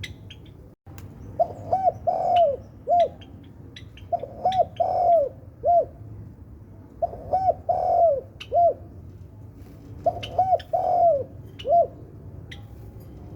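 Spotted dove cooing: four repeated song phrases, each of about four coos, two short, one longer and one short, about three seconds apart. Faint short chirps of other small birds come in between.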